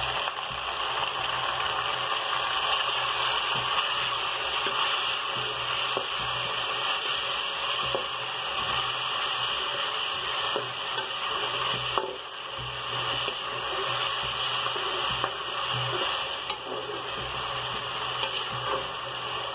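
Chopped tomatoes, green chillies and cabbage sizzling in hot oil in an aluminium pot as they are stirred with a steel spoon. The sizzle is a steady hiss, with a few light scrapes and taps of the spoon against the pot.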